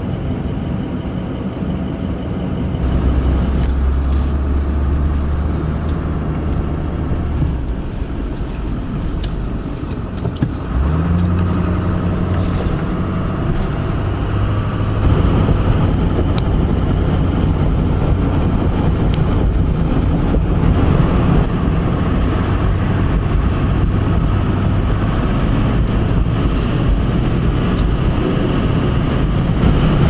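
Pickup truck engine and tyre noise heard from inside the cab while driving on snow-covered roads. A steady low engine hum steps up in pitch suddenly about eleven seconds in, then runs on evenly under a constant road rush.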